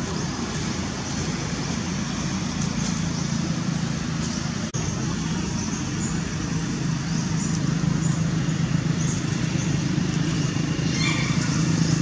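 Steady low rumble of distant motor traffic, with a brief high call near the end.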